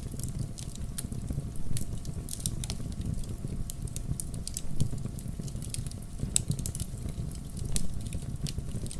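Wood campfire burning, with irregular sharp crackles and pops over a steady low rumble of the flames.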